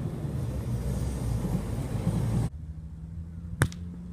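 Wind buffeting the microphone as a loud, rough rumble that cuts off abruptly about two and a half seconds in. It is followed by a faint steady hum and one sharp smack, like a volleyball being hit.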